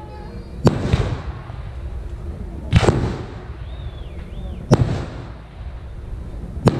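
Aerial firework shells going off one after another: four sharp bangs about two seconds apart, each trailing off in a rolling echo.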